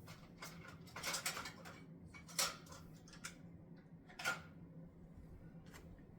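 Plastic clicks and knocks from a new mandoline chopper being handled and pushed down on an onion, the two loudest a couple of seconds apart, as it jams and won't cut.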